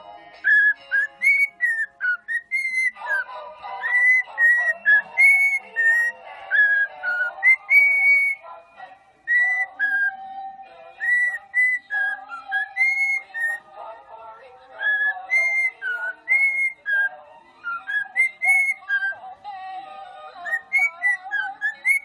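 A whistled tune of short rising and falling notes, about one or two a second, over a held mid-pitched tone.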